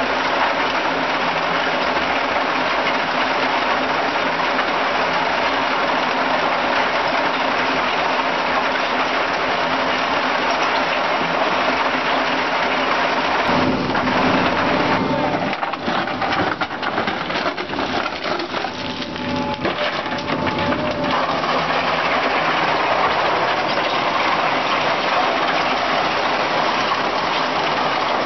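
Small mobile cone crusher crushing stone: a steady, dense rattle and grind of rock, with crushed gravel pouring out of the discharge. About halfway through, the sound turns rougher and uneven for several seconds, then settles back to the steady rattle.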